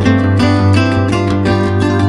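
Background music with plucked strings carrying a steady, continuous melody.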